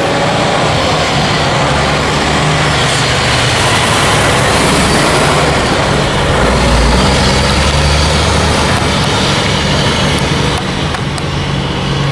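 Vehicle on the move: steady engine and road noise with a low hum.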